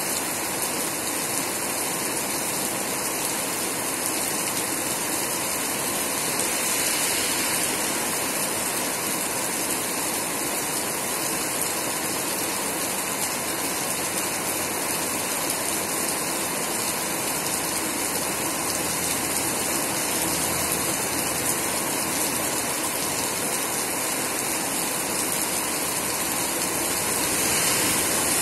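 Heavy typhoon rain pouring steadily onto the street and pavement. Near the end, the noise swells as a vehicle passes on the wet road.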